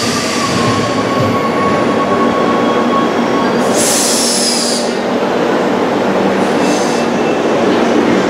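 Rome Metro train pulling into an underground station and braking to a stop: a steady rolling rumble with a whine that falls in pitch over the first few seconds as it slows, then a high-pitched squeal for about a second near the middle and a shorter, fainter one a little later.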